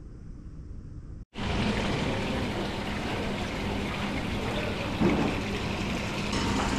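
Steady rushing of water that starts abruptly about a second in, after a short quieter stretch, with a faint steady low hum under it.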